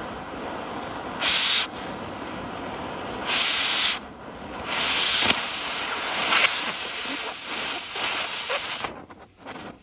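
Oxy-acetylene cutting torch hissing steadily as it cuts through a rifle's lever. The hiss swells into two short loud blasts in the first four seconds, then a longer one from about five to nine seconds, before dropping away near the end.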